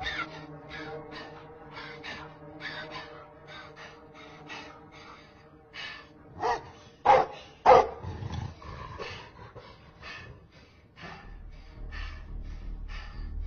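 Dog barking in a film soundtrack: three loud, short barks about halfway through, among fainter rapid sounds, over a sustained music drone, with a deep low rumble coming in near the end.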